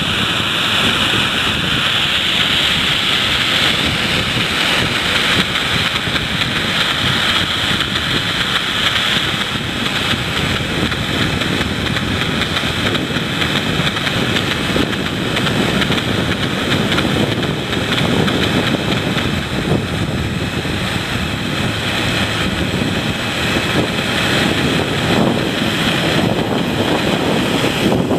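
Jet airliner engines running, a steady rushing noise with a low rumble that grows stronger through the middle.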